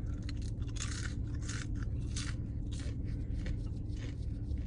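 A series of short rustling, scraping noises, about six of them, over a steady low hum.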